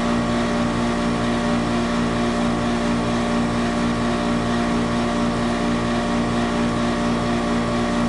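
A 20-year-old Bryant air-conditioning condenser running: a steady, even hum from the unit with a faint low pulsing.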